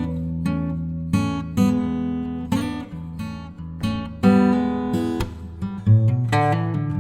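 Background music: acoustic guitar chords strummed and left to ring, a new chord every half second to a second.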